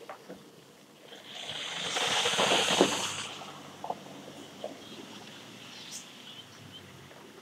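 Pickup truck driving past on a dry dirt road, the noise of its tyres on the dirt swelling to a peak about two to three seconds in and then fading away.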